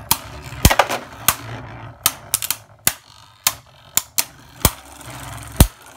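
Two Beyblade Burst spinning tops, Twin Nemesis and Kinetic Satomb, colliding again and again in a plastic stadium. Their impacts make sharp, irregular clacks, about fifteen of them, two or three a second. At times a low whir from the tops spinning on the stadium floor runs between the clacks.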